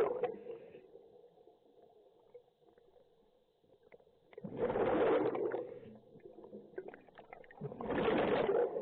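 Scuba diver exhaling through the regulator, heard underwater as bursts of bubbling. Two bursts, each a little over a second long and about three seconds apart, follow the tail of an earlier one.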